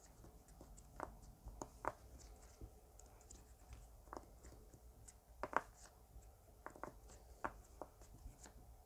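Faint, irregular clicks, about one or two a second, of a giant round silicone pop-it fidget's bubbles being pressed through one by one with the fingers.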